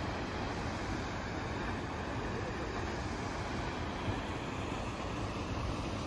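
Steady rush of a waterfall and the river rapids below it, a continuous even water noise.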